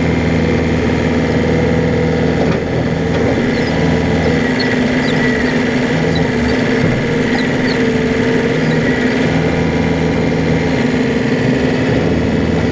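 Excavator's diesel engine running steadily while it digs out a stump, its note wavering briefly a few times.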